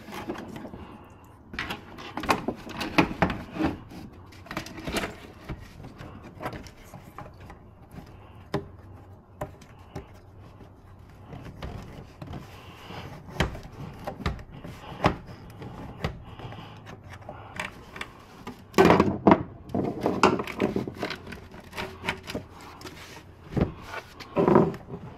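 Intermittent knocks, clicks and rubbing as the plastic intake tube and rubber boot of a cold air intake are handled and worked into place among the engine's hoses. The loudest cluster of knocks comes about three quarters of the way through.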